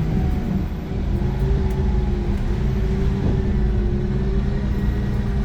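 Iveco Crossway LE 12 bus with a Cursor 9 diesel engine and ZF gearbox under way: a steady low engine drone with a mid-pitched whine over it that wavers and rises slightly.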